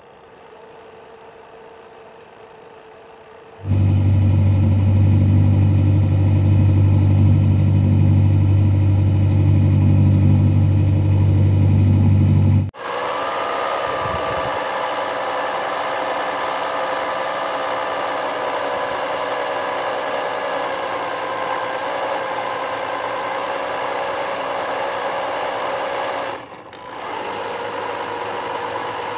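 RC model boat's DC 775 electric drive motor running, heard from on deck as a steady mechanical hum. About four seconds in it jumps abruptly louder and deeper. About thirteen seconds in it switches to a higher whine that drifts slightly in pitch and dips briefly near the end.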